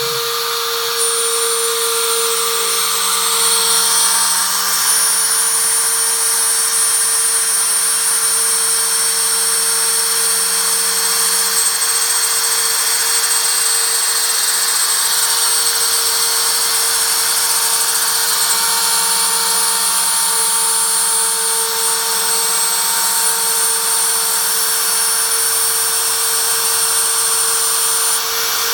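MPCNC router spindle running steadily with a high whine while milling 4 mm plywood. Lower machine tones shift and change every few seconds as the cut goes on.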